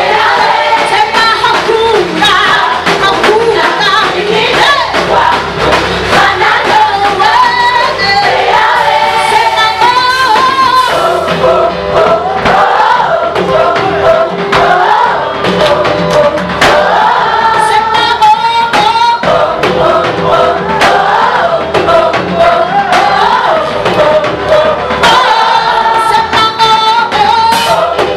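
Gospel praise song: a choir sings over a band with a steady beat.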